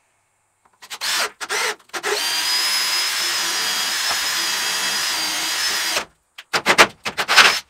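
Cordless drill with an auger bit boring through a wooden wall stud and the shed's metal exterior siding. A few short bursts come first, then a steady run of about four seconds with a high whine, then a quick series of short bursts near the end as the bit breaks through.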